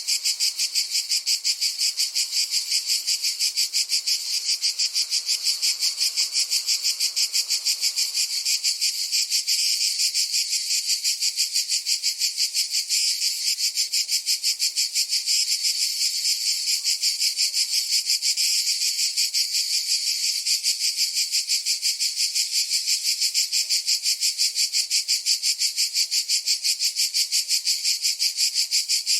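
Cicada calling: a high, shrill buzz that pulses rapidly and evenly without a break.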